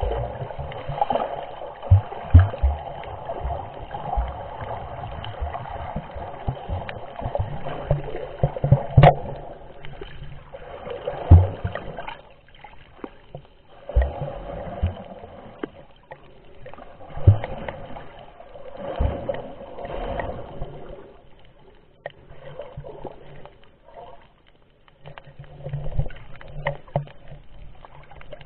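Muffled underwater sound of water moving around a camera while snorkelling: a swelling and fading wash every few seconds, broken by irregular low knocks and thumps.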